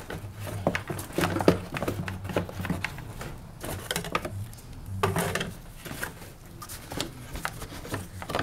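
Plastic fan shroud of a BMW 528i being worked loose and pulled out of the engine bay: irregular hard plastic knocks, clicks and scraping, in clusters about a second in, around four seconds and around five seconds, over a steady low hum.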